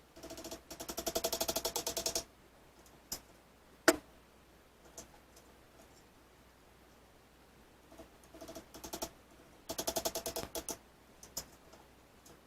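Small nails being tapped into a wooden frame with a hammer: two runs of fast, light, ringing taps, each about two seconds long, with a few single sharp clicks between them.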